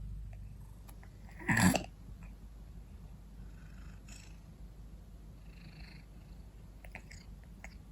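A tabby cat breathing noisily through its nose with a low, rough rattle, and one loud burst of breath about a second and a half in. The obstructed nasal breathing is thought to come from the shape of its nose or from a past bout of cat flu that lingered.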